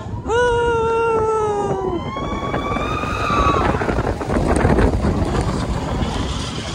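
Riders screaming as a roller coaster train drops: one long high scream that sags slightly in pitch, then a higher held note until about halfway through. After that comes the steady rumble of the coaster train running fast along its track, with wind rushing over the microphone.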